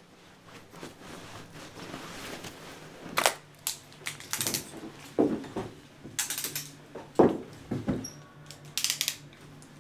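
Nylon puffer jacket rustling as it is pulled on, with scattered knocks and clicks. Near the end, metal handcuffs clink and click as they are closed on wrists.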